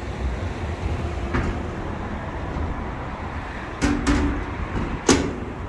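Steel door latches and doors of a diamond-plate smoker trailer being worked: a few sharp metallic clanks, the loudest about five seconds in, over a low rumble.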